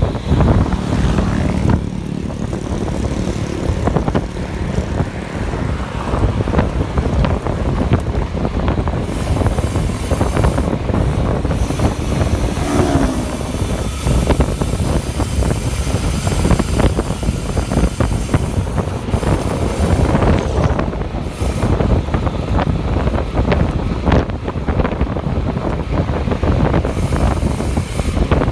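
Wind buffeting the microphone with a steady low rumble, typical of air rushing past a camera on a moving bicycle.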